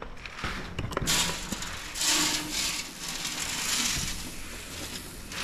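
Grain being scooped and poured out as cattle feed: a dry rustling hiss that comes and goes, with a few clicks and knocks in the first second.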